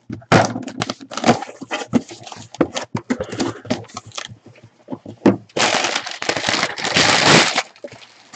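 A cardboard shipping case being opened by hand: a run of crackles and snaps as the taped flaps are pulled apart, then two long rustles of packing paper being pulled out, about six and seven seconds in.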